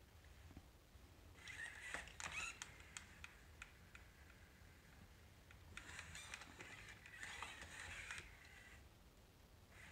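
Sony aibo ERS-1000 robot dog making two faint bursts of high-pitched sound with clicks as it moves, the first short and the second about three seconds long.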